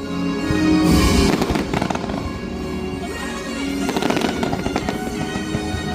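Fireworks going off in rapid succession, cracking and banging, over loud show music; the heaviest volley comes about a second in.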